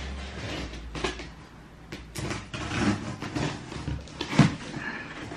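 Handling noises from a cardboard parcel box being pulled across the floor: irregular scuffs and light knocks, with one louder thump about four seconds in.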